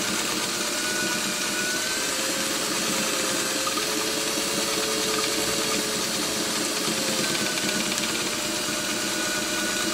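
Domestic sewing machine running steadily at stitching speed while free-motion quilting, its motor hum drifting slightly up and down in pitch as the speed changes.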